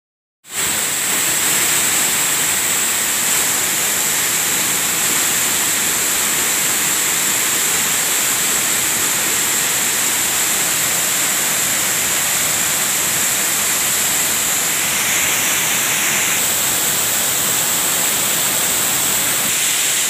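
Waterfall pouring onto rocks close by: a steady, loud rush of falling water that starts about half a second in.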